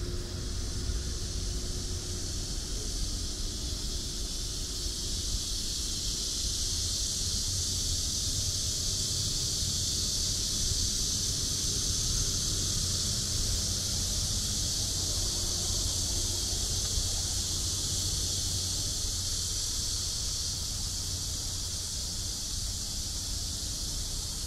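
Steady, high-pitched drone of cicadas in the trees, over a low wind rumble on the microphone.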